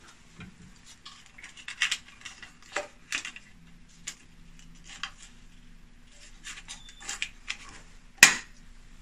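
Small plastic thermal printer being handled as its paper roll is loaded: scattered light clicks, taps and rustles, with one sharp snap near the end.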